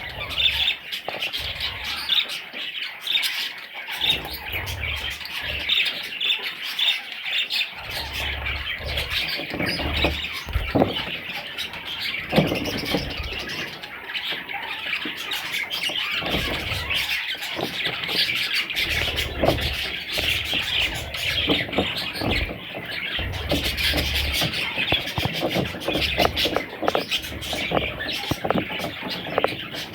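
Budgerigars chattering continuously: a dense, unbroken stream of many short, quick calls.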